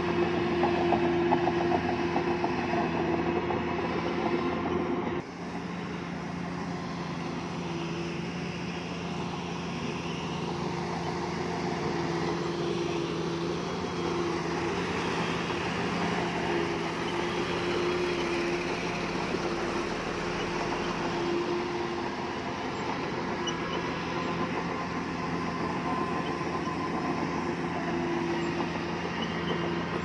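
Heavy construction machinery's diesel engine running steadily, with a steady hum that drops suddenly in level about five seconds in.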